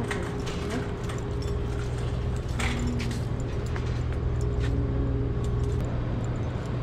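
Metal shopping cart rolling along a store floor: a steady low rumble with scattered rattling clicks.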